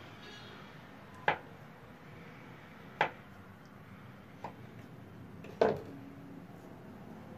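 Knife slicing through a log of chocolate-and-vanilla biscuit dough, the blade knocking sharply on the work surface at the end of each cut: four knocks about one and a half seconds apart, the third fainter.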